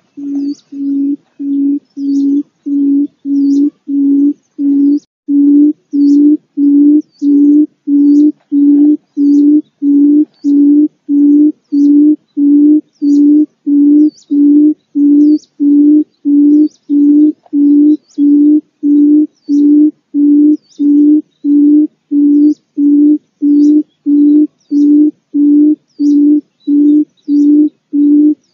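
Quail (pugo) giving a low hooting call: one short, steady note repeated evenly about twice a second in an unbroken series. The call swells in loudness over the first few seconds, then holds level.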